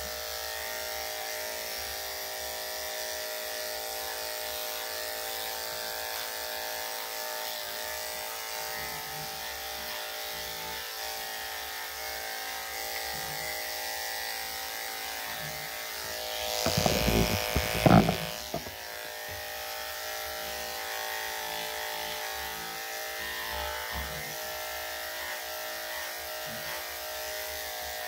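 Electric dog grooming clippers with a #10 blade running with a steady hum as they shave a dog's coat. About seventeen seconds in there is a louder burst of knocks and rustling lasting a couple of seconds.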